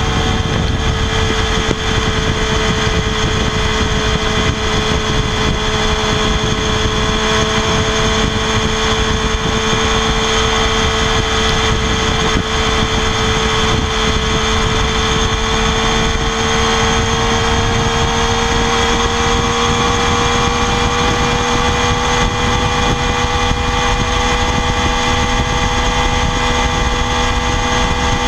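Triumph Daytona 675R's 675 cc inline three-cylinder engine through its stock exhaust, held steady at high revs. The pitch creeps slightly higher over the span.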